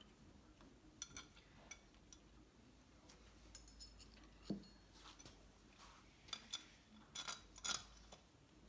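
Faint, scattered metallic clinks and taps of small engine parts and hand tools being handled while reed blocks are fitted to a jet-boat engine's intake. One clink about three and a half seconds in rings briefly, and a quick run of clicks comes near the end.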